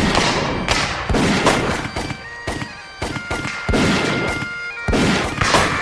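Ragged black-powder musket fire from an infantry line: a quick, uneven string of sharp shots, several overlapping, each trailing off in an echo. Steady held musical notes sound underneath.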